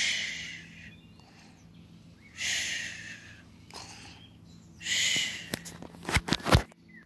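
A person making three slow, breathy snoring sounds about two and a half seconds apart, imitating a sleeping animal. Near the end comes a quick run of knocks and clicks.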